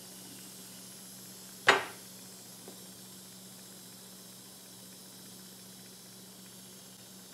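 A single sharp knock a little under two seconds in: a plastic glue bottle set down on the metal table saw top. After it there is a faint click, over a steady low hiss and hum.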